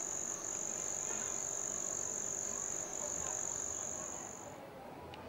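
Cricket trilling on one steady high note, stopping about four and a half seconds in.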